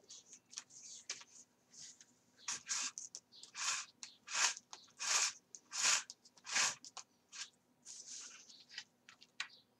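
Thread being drawn through the punched holes of card pages in coptic-stitch binding: a run of short scraping strokes, the loudest half a dozen coming in quick succession in the middle, with softer rustling around them.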